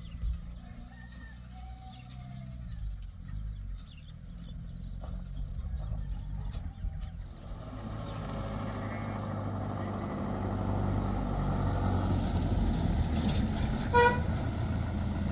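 Pickup truck engine running as it drives along a dirt road, growing louder as it comes closer. A short horn toot sounds near the end.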